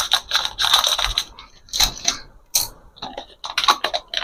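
Plastic wrapper of a Cadbury Dairy Milk chocolate bar crinkling and crackling in the hands as it is opened, in a run of short irregular bursts.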